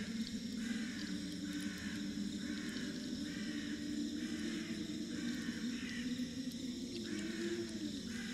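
Swamp ambience: a short animal call repeated at a steady pace, a little faster than once a second, over a continuous low drone and a faint high steady hum of insects.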